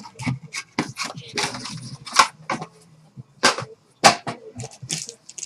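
Sharp, irregular clicks and snaps of cardboard and plastic as a trading card box and its packs are handled and opened on a table, with three louder snaps about two, three and a half and four seconds in.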